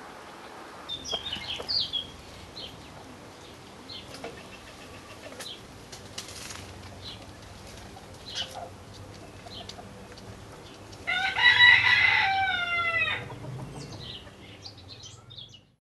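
Chickens settling on a tree roost, with scattered soft clucks and chirps and a short rustle about six seconds in. Then, about eleven seconds in, a cockerel crows once, a loud call of about two seconds that drops in pitch at the end.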